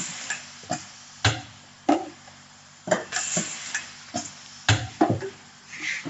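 Bottle labeling machine being worked: irregular sharp clicks and knocks, about eight of them, with brief rustling between, over a faint steady hum.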